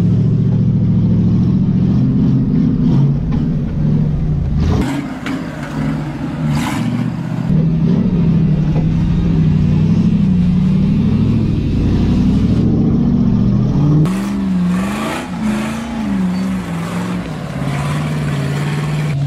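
The Jeep CJ rock crawler's 6.0-litre LS LQ9 V8 engine is revving up and down under load as the Jeep climbs over rocks on 49-inch tyres. The pitch rises and falls with the throttle. Short rushes of noise come about five, seven and fifteen seconds in.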